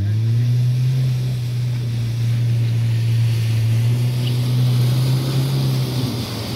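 VW T3 Syncro van's engine revving up and held at steady high revs as the van ploughs through deep floodwater, the rush of its bow wave growing louder over the last couple of seconds. The revs drop near the end.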